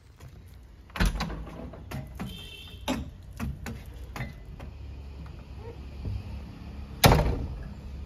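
Cab door of a JCB 3DX Eco Xpert backhoe loader slammed shut about seven seconds in, the loudest sound. Before it come a heavy knock about a second in and a few lighter knocks and clunks as someone climbs into the cab, over a low steady hum.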